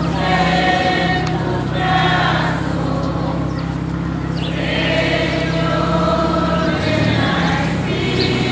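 A group of voices singing a slow religious hymn in unison, holding long notes.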